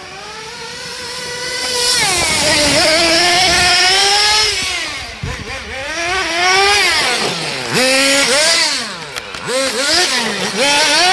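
Kyosho Nitro Tracker RC truck's small two-stroke nitro engine revving hard, growing louder over the first two seconds. Its pitch repeatedly drops sharply and climbs again as the throttle is worked.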